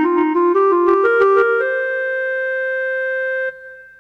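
Keyboard music: a quick run of notes climbing upward, then one long held note that stops abruptly about three and a half seconds in, as a short musical link between scenes.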